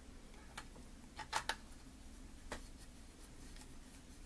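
Faint scattered clicks and light taps of a small screwdriver and metal screws as screws are driven into a hard drive, with the loudest pair of clicks about a second and a half in.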